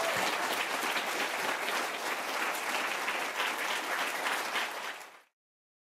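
Audience applauding. The applause dies down and then cuts off abruptly about five seconds in.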